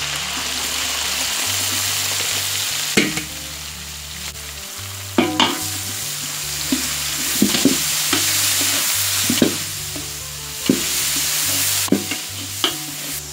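Chopped red onions sizzling as they fry in hot oil in a large wok, stirred with a wooden spoon that knocks against the pan several times.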